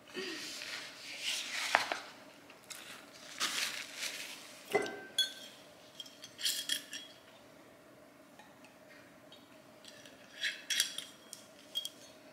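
Cutlery clinking and scraping against a bowl in scattered short bursts as someone eats, with quiet gaps between.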